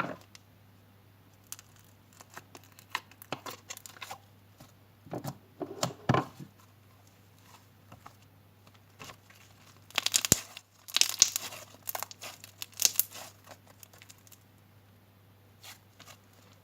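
Purple slime being stretched and squeezed by hand, giving irregular crackling and sticky popping sounds, with two busier spells around the middle.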